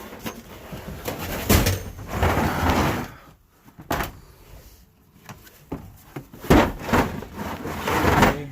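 Metal hand tools clattering and scraping, with knocks and sliding sounds like a toolbox drawer, as wrenches are searched through for an 18 mm one.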